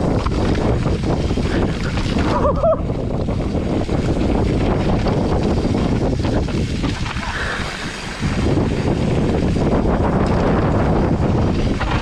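Wind buffeting the microphone of a mountain biker riding downhill, with steady rattling and knocking from the bike over rough trail. A brief squeal sounds about two and a half seconds in.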